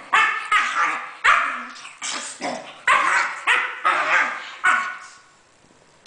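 Dog barking in play between a bull terrier and a miniature schnauzer: a quick run of about a dozen short barks, two or three a second, that stops about five seconds in.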